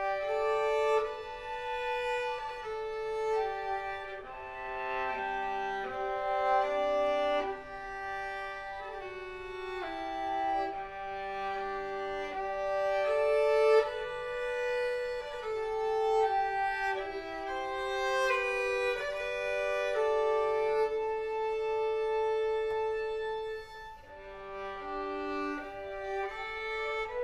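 String quartet of two violins, viola and cello playing bowed notes together, the notes changing about every second, with a longer held note about three-quarters of the way through and a brief dip in level shortly after.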